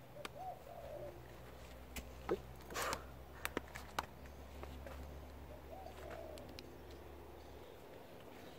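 A dove cooing in two short phrases, one near the start and one about six seconds in. Between them come a handful of sharp knocks and rustles as sweet potato roots are handled in loose soil.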